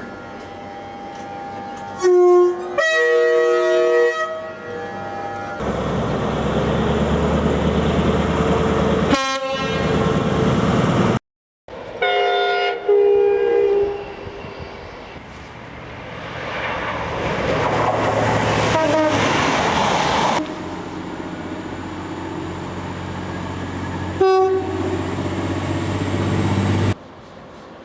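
A run of British train horn blasts, several of them two-tone, sounding one note then a second, between the rumble and clatter of trains passing. The sound is spliced from short clips, with abrupt cuts and a brief dropout to silence a little before halfway.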